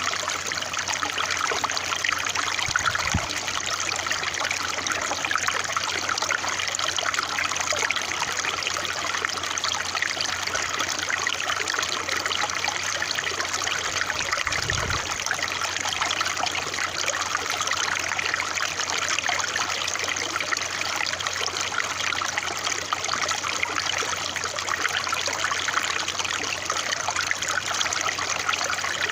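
Running water trickling and babbling steadily, like a small stream, with no let-up. Two brief low bumps come through, about three seconds in and about halfway.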